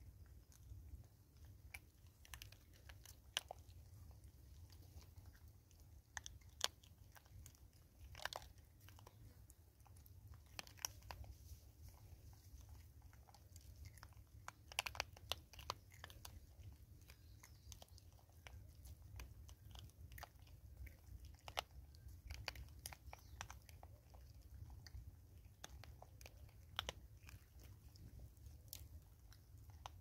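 Vervet monkeys feeding on dry bird seed and cracked maize close to the microphone: scattered sharp crunches and clicks as kernels are picked up and chewed, irregular throughout, over a faint low rumble.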